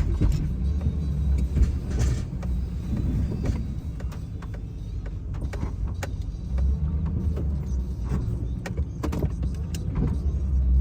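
Plow truck's engine running steadily, louder in the second half, with scattered sharp clicks and knocks over it.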